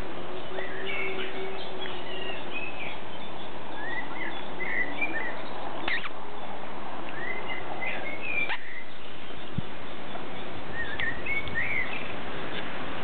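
One-month-old boxer puppies nursing from their mother, giving short, high squeaks and whimpers every second or two over a steady hiss.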